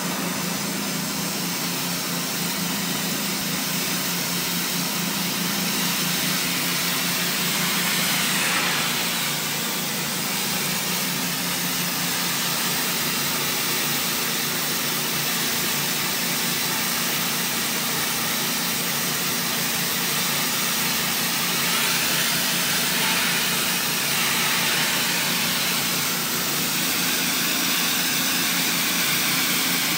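Pressure washer jet hissing steadily on a concrete sidewalk as it blasts off stuck chewing gum, with the machine's motor humming underneath. The hiss brightens briefly a couple of times as the wand moves.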